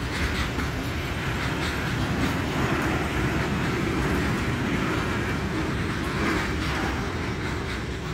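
Freight train rolling along the track: a steady rumble of wheels on rails with faint regular clicks.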